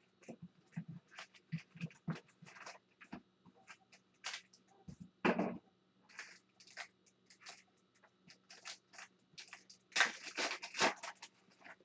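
Trading card packs and cards being handled: short, irregular crinkles and rustles of foil wrappers being torn open and cards sliding against each other, with a louder burst of rustling about ten seconds in.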